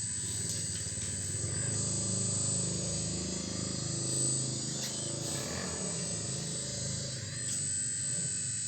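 Full-metal RC excavator's motors whining steadily as it works, with a few scrapes and clinks of rock and soil around the middle and near the end.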